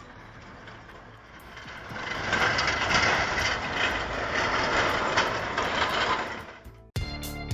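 Heavy machinery running, a noisy sound that swells about two seconds in and cuts off suddenly near the end.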